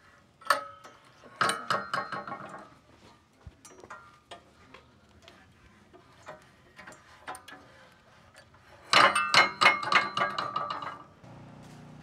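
Steel log clamps on a Wood-Mizer LT15 sawmill bed clanking and rattling as they are set by hand: a sharp clank about half a second in, a run of clanks just after, and a louder run of clanks and rattles about nine seconds in. A low steady hum begins near the end.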